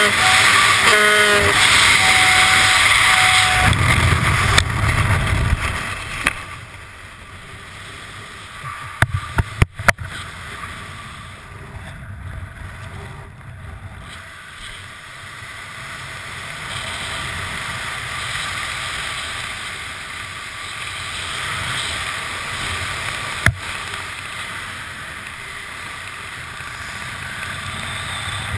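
Skydiving wind noise on a helmet camera: loud rushing freefall wind for the first several seconds, with a few short beeping tones near the start. About nine to ten seconds in comes a cluster of sharp snaps as the parachute deploys. Then a much quieter, steady wind under the open canopy.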